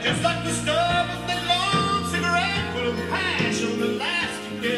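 A vinyl record playing on a Dual 1009 SK2 idler-drive turntable, heard through the stereo's speakers: a song with a singing voice over instrumental backing.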